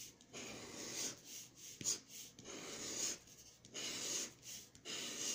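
A Texas Lottery $200 Million Cash Explosion scratch-off ticket being scratched: a run of short rasping strokes, a little more than one a second, as the latex coating is scraped off.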